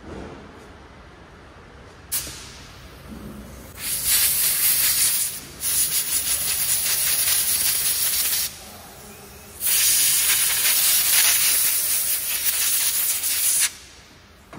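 Compressed-air blow gun hissing as it blows out the small VVT-i oil control valve filter screen to clean it: a short puff about two seconds in, then three long blasts, the last about four seconds long.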